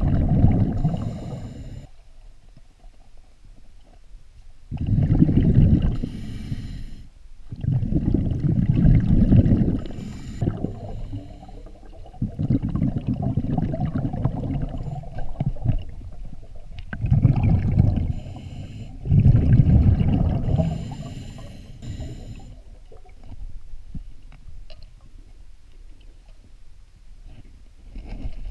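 Scuba diver breathing through a regulator underwater: exhaled bubbles come out as low bubbling rumbles of a second or two each, repeated about six times, then quieter for the last several seconds.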